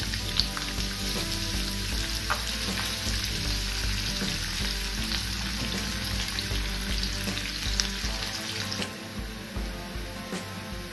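Sliced onions sizzling and crackling in hot oil in a nonstick frying pan, stirred with a spoon. The sizzle eases a little near the end.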